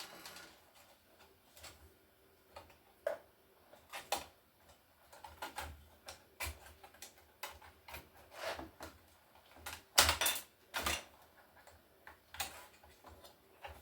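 Scattered light clicks and taps of a screwdriver and plastic and metal laptop parts being handled while a laptop is taken apart, with a couple of louder knocks near the end.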